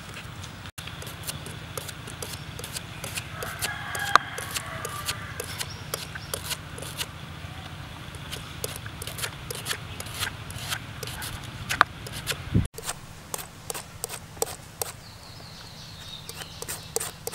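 Knife slicing a banana flower: a run of short, crisp cuts as thin slices of the heart are shaved off into a basin of water. A chicken clucks in the background around four seconds in.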